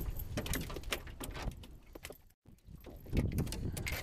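Irregular knocks, clicks and rattles of boots, gear and a landed fish on a small boat's ribbed floor, broken by a brief dropout a little past halfway.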